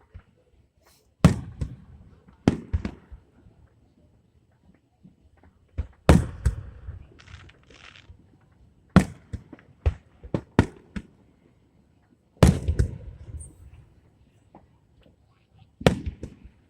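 Fireworks display: sharp aerial shell bursts every few seconds, some in quick pairs, each trailing off in a rumbling echo, with a rapid cluster of bangs about three-quarters of the way through.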